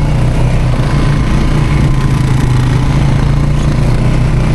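ATV engine running steadily at a constant pitch, with no revving.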